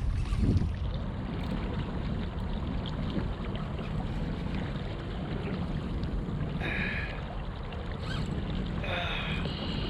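Wind buffeting the microphone over water rushing against a kayak anchored in a strong tidal current, a steady low rumble, with a brief louder swell about half a second in and two short higher-pitched sounds about seven and nine seconds in.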